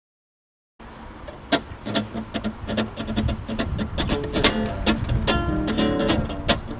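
Acoustic guitar strumming the song's opening chords, starting about a second in after dead silence and growing louder.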